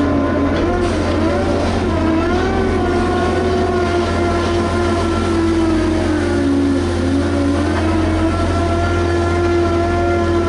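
Liebherr HS 8200 dragline's diesel engine running steadily under load, with a deep rumble and a droning note whose pitch dips briefly a few times as the machine works.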